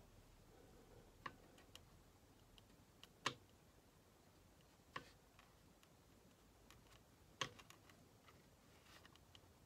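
Near silence broken by a handful of sharp, irregularly spaced taps and clicks, the loudest about three seconds in, with a few fainter ticks between them.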